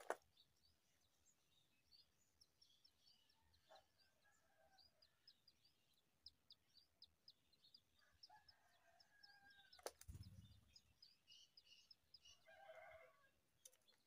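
Faint, rapid, high-pitched cheeping of brown rock chat nestlings begging while being fed, with a few lower calls mixed in. About ten seconds in there is a sharp click and a soft thud.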